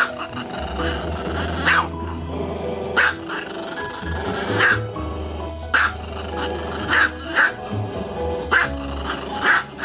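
A small dog barking upward in short, sharp barks, about nine of them at uneven intervals, over background music.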